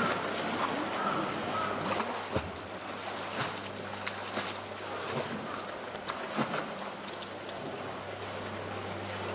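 A polar bear splashing in pool water, slapping at the pool wall with its front paws, with irregular sharp splashes over a running wash of water. A steady low hum runs underneath.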